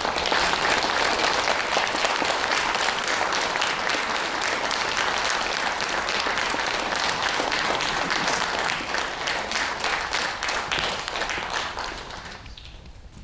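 Large audience applauding in a hall, a dense steady clapping that dies away near the end.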